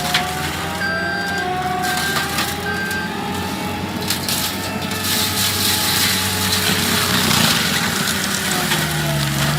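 Heavy forestry machine's engine running steadily, with a whine that wavers in pitch and crushing, cracking noises of wood being worked.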